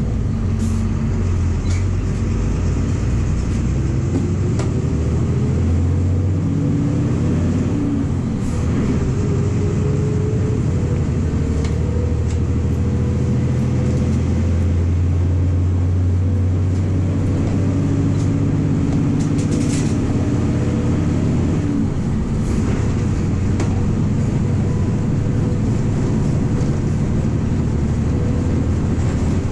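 MWM 6.12 TCE six-cylinder turbodiesel of a VW 17.230 EOD bus running under way, heard from inside the cabin. Its pitch climbs as it pulls, holds steady, then drops about three quarters of the way through, with a few short rattles over it.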